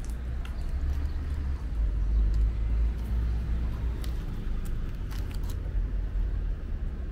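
Outdoor street ambience with a steady low rumble and a few faint light taps of footsteps.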